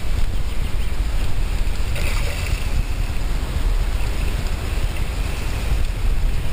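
Wind rumbling on the microphone over a haze of river water noise. About two seconds in, a hooked barbel thrashing at the surface adds a splashy hiss.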